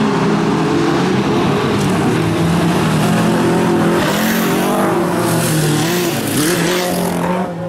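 Several VW Beetle race cars with air-cooled flat-four engines running hard together, their engine notes rising and falling against each other. From about four seconds in, a hiss of tyres and gravel joins them as a car slides through a loose gravel corner. The sound drops suddenly just before the end.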